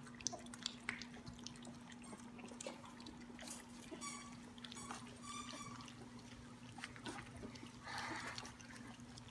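Litter of three-week-old Lab-mix puppies lapping and slurping wet puppy mush from a stainless steel saucer feeding pan: many small wet licking clicks, with a couple of brief high puppy squeaks about four to five seconds in. A steady low hum lies underneath.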